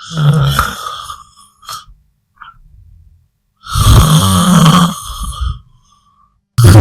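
Snoring sound effect: loud, rough snores a second or two long, with short pauses between them.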